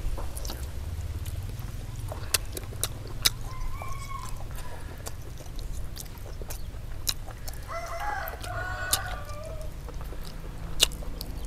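A rooster crowing once, a warbling call of about a second and a half some eight seconds in, with a shorter call near four seconds. Scattered sharp clicks and a steady low rumble run underneath.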